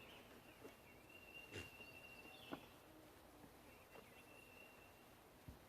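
Quiet outdoor ambience: a faint, high-pitched insect drone that stops and starts several times, with a few soft clicks.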